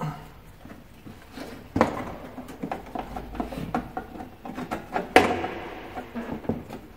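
A Honda Gold Wing motorcycle seat being worked down into place. It knocks and rubs against the bike's bodywork, with light clicks throughout and two louder knocks, one about two seconds in and one about five seconds in.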